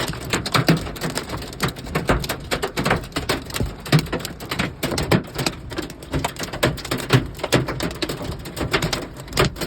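Hail with heavy rain striking a hard surface: a dense, irregular clatter of sharp hits.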